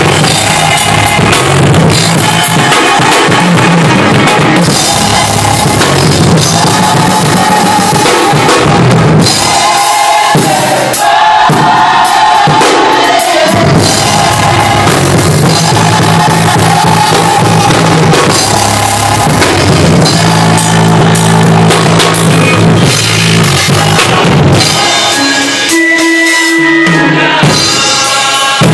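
Live church music, loud: a drum kit played with snare, bass drum and cymbals over an organ holding chords.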